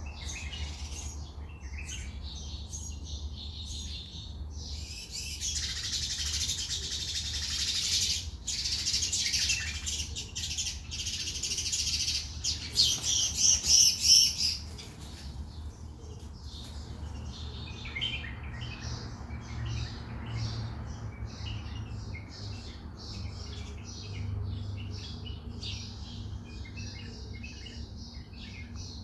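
Wild birds chirping and calling, with many short high chirps that thicken into a dense chorus in the middle, loudest in a quick run of repeated notes about two-thirds of the way through the first half, then thinning to scattered chirps. A steady low rumble lies underneath.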